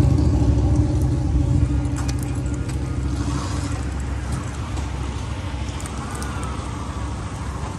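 A motor vehicle's engine running close by, loud at first and slowly fading away as it moves off.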